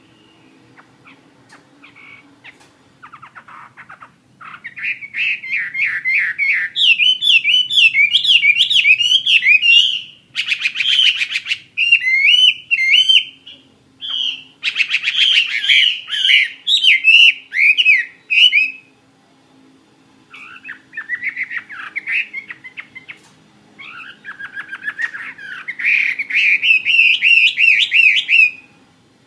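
Chinese hwamei singing a long, varied song of quick rising and falling whistled notes in phrases broken by short pauses, with two bursts of fast rattling trills in the middle.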